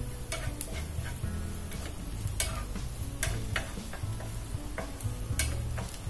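Spatula stirring sliced onions and garlic in a frying pan, with irregular clicks and scrapes against the pan over a light sizzle of frying.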